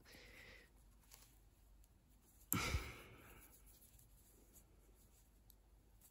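Quiet hand-knitting: faint clicks of metal knitting needles and the rustle of yarn being worked, with one short breath close to the microphone about two and a half seconds in.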